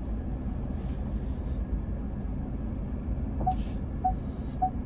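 Car cabin noise: a steady low rumble from the engine and tyres while driving. About three and a half seconds in, the turn-signal indicator starts ticking, a little under two ticks a second, as the car sets up to turn around.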